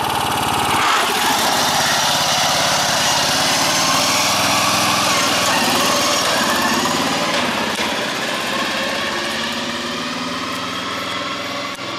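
Racing riding lawn mower's small engine running hard as the mower takes off and speeds away. The pitch rises and falls as it goes, and the sound slowly fades over the second half as it draws away.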